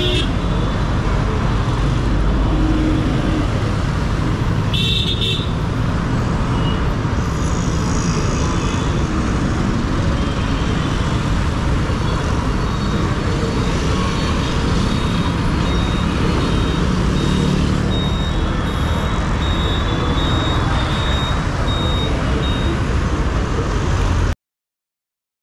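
Steady rumble of wind and road traffic while riding, picked up on a helmet microphone. It cuts off abruptly near the end.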